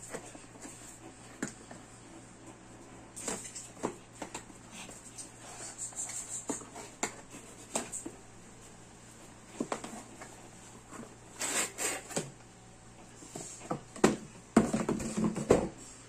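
Scissors cutting through packing tape on a small cardboard box and the box flaps being pulled open, then the bubble-wrapped package inside being handled: irregular snips, scrapes and plastic crinkling, louder and busier near the end.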